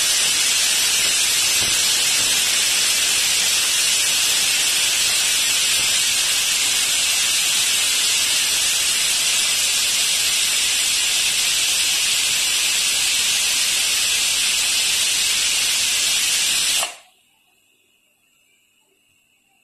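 Pressure cooker whistle valve venting steam in a loud, steady hiss, the cooker at full pressure. The hiss cuts off suddenly near the end as the weight drops back onto the vent.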